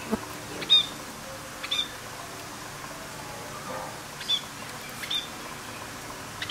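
Budgerigars chirping: four short, high chirps at uneven gaps, over a faint steady hum.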